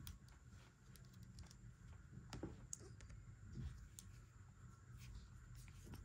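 Near silence with a steady low room hum and scattered faint clicks and taps from a metal crochet hook and long nails as hands work yarn.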